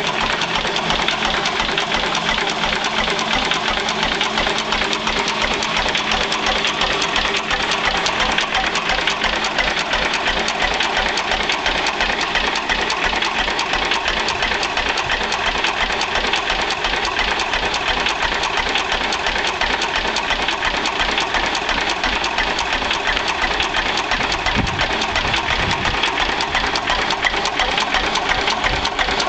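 1918 Lister P type 6 hp single-cylinder stationary engine running steadily with a rapid, even mechanical beat.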